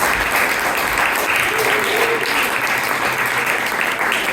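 Audience applauding, a dense steady clapping that keeps up throughout.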